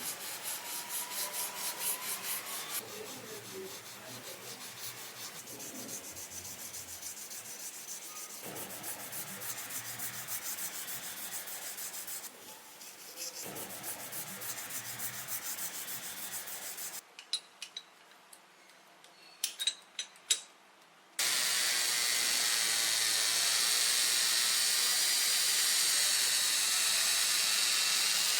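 Hand sanding on a diecast model car body: repeated rhythmic rubbing strokes in several short takes. Then a few sharp clicks, and from about three-quarters of the way in a steady, louder hiss.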